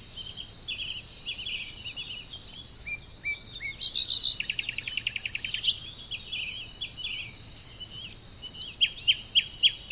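Several wild birds calling and singing over a steady, high-pitched drone of insects such as crickets. A rapid trill of short repeated notes comes about four to six seconds in, and a run of quick falling whistled notes near the end.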